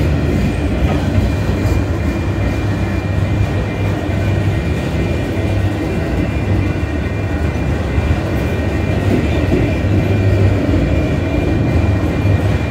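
Union Pacific autorack freight cars rolling past close by: a steady, loud rumble of steel wheels on rail, with a faint steady high whine above it.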